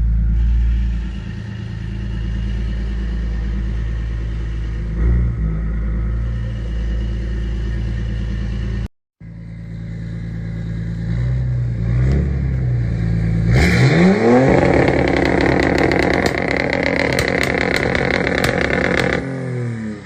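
BMW 330d's M57 straight-six diesel with a straight-through exhaust, first rumbling at low revs; after a brief break it revs up sharply and is held against a hardcut rev limiter, crackling with rapid pops, then drops back as the revs fall near the end.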